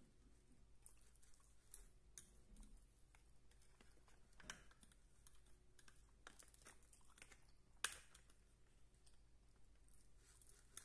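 Faint clicks and scrapes of a plastic fork against a clear plastic takeout container as rice is scooped up, with soft chewing. One sharper click about eight seconds in.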